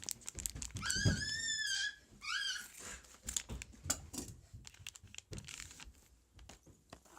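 Two short, very high-pitched whining cries, one about a second in and a briefer one just after two seconds. They are followed by a scattered run of small clicks and crinkles from a card pack wrapper being handled.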